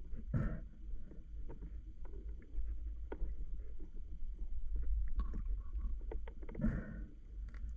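Water sounds of a swimming spearfisher heard through the camera: a steady low rumble with faint scattered clicks, and two short splashy bursts, one about half a second in and one near the end.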